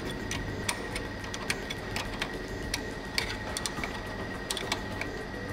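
Ratcheting wrench clicking in short, irregular strokes, about two or three clicks a second, as a 13 mm brake caliper bolt is tightened.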